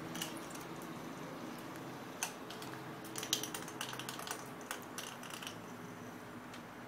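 A puppy playing on a tiled floor: irregular light clicks and taps, bunched together in the middle few seconds.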